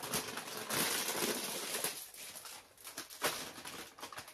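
Kitchen cooking sounds as spätzle goes into the pot: clicks and knocks of utensils against a pot, with a hiss lasting about a second, starting about a second in.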